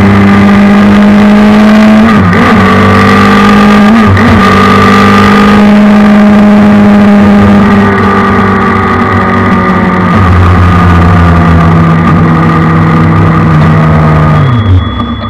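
Suzuki Hayabusa inline-four motorcycle engine in a race car, with an Akrapovic exhaust, heard onboard at full throttle. The pitch climbs and drops back at two quick upshifts in the first few seconds, holds high along the straight, then falls sharply near the end as the driver lifts off for the next corner.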